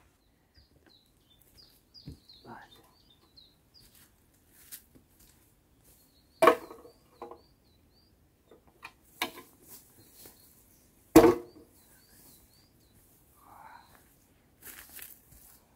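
Two sharp knocks, about six and eleven seconds in, and a few softer clicks and rustles of a person handling gear and stepping about; a small bird chirps in short high notes in the background.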